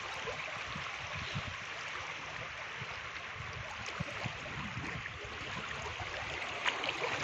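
River current flowing over a shallow, rippled stretch close to an inflatable boat: a steady rushing wash of water with a few faint taps, the loudest near the end.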